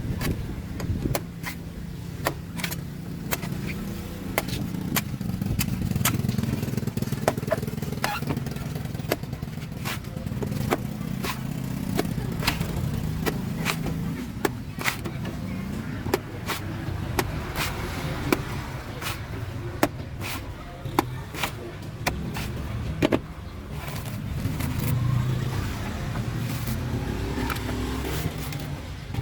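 A knife chopping and shaving a coconut: many sharp chops at irregular intervals, roughly one a second, over a steady low rumble.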